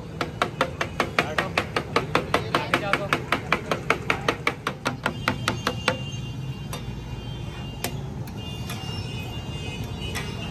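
Flat metal blade chopping tomatoes directly on a large steel tawa griddle: rapid, even strikes of metal on metal, about four to five a second, that stop abruptly about six seconds in. After that come scattered scrapes and clicks of spatulas mixing on the griddle.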